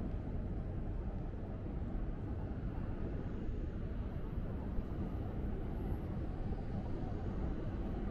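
Steady low rumble of city street ambience, mostly traffic, with no single sound standing out.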